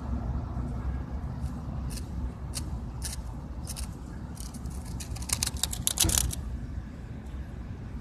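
Cicada on concrete being prodded with a twig: scattered dry clicks and scrapes that thicken into a quick rattling flurry about five seconds in, over a steady low rumble.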